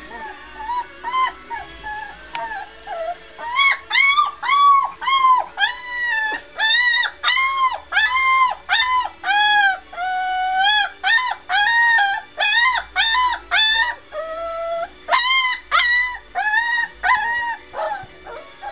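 A three-week-old White Swiss Shepherd puppy howling in a run of short, high-pitched cries, each rising and falling, about two a second. Softer whimpers come first, the cries grow loud about three or four seconds in, and they stop shortly before the end.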